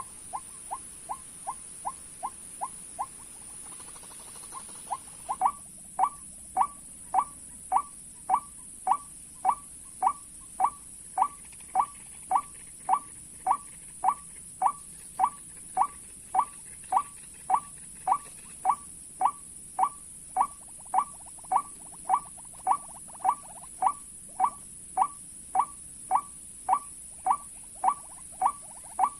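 White-breasted waterhen calling: a monotonous train of short "ruak" notes. A softer, quicker run stops about 3 seconds in, and after a short pause the calling starts again louder at about two notes a second.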